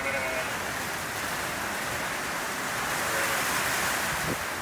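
Heavy storm rain pouring down steadily, a continuous even rush.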